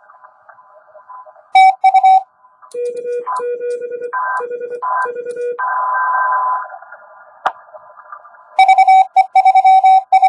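Morse code (CW) from an Index Labs QRP+ transceiver: receiver hiss with a faint steady signal, then keyed tones in on-off groups. A fast run of loud keyed dashes and dots starts about eight and a half seconds in.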